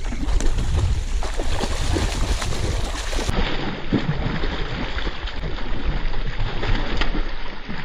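Water splashing and churning as a hooked traíra (wolf fish) is fought and brought in, with wind rumbling on the microphone.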